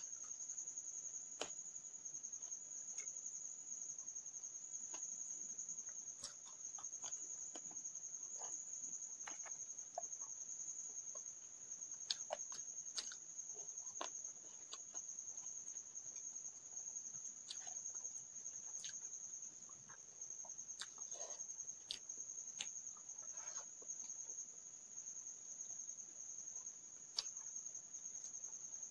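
A steady, high-pitched insect trill, typical of crickets, runs throughout. Over it come scattered soft clicks and smacks of someone eating with the fingers and chewing, a few of them sharper.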